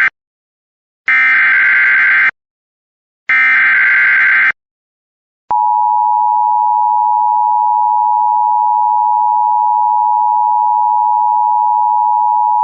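Emergency Alert System SAME header: the tail of one short digital data burst and then two more, each about a second long, with short gaps between them. They encode a severe thunderstorm warning. About five and a half seconds in, the steady two-tone EAS attention signal starts and keeps going.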